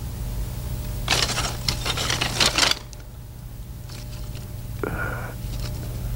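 A bamboo-slip scroll clattering as it is handled and set down: a dense rattle of small wooden clicks lasting about a second and a half, over a steady low hum. A short pitched tone follows about five seconds in.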